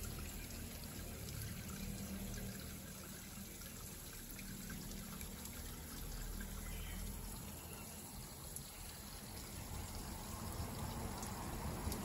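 Sacred spring water trickling steadily from hoses and splashing onto the rocks below.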